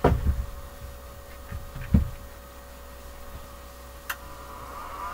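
Knocks and thumps as the SAF Presto 185 welding inverter's plastic casing is handled and set down on the bench. About four seconds in comes a sharp click, and near the end the inverter's cooling fan starts whirring, rising in pitch as it spins up.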